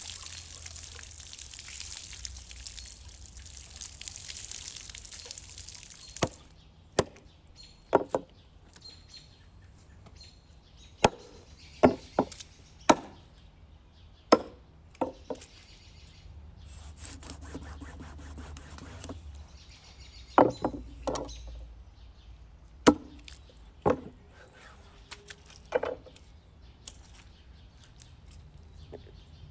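A small hatchet chopping into a large fish on a thick wooden board, cutting through near the head: about a dozen sharp chops, singly and in quick pairs, with pauses between.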